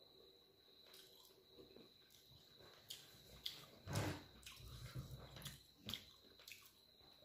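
Faint wet eating sounds of dal and rice eaten by hand: mouth smacks and fingers squishing the wet food, a few short clicks that grow busier about three seconds in. A faint steady high whine runs underneath.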